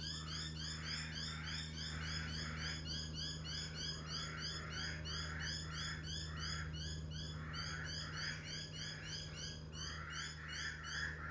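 A steady chorus of short rhythmic animal calls, about four a second, with a slower pulsing call beneath, over a constant low hum.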